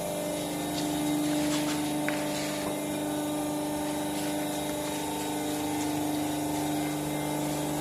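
Paving-block press machine running, its vibrator motors giving a steady, even hum with a few faint ticks.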